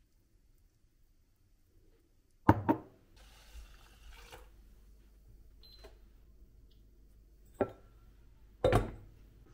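Household handling sounds in a small room: a sharp double knock, a short rush of running water, then two more sharp knocks near the end, like objects being set down on a hard surface.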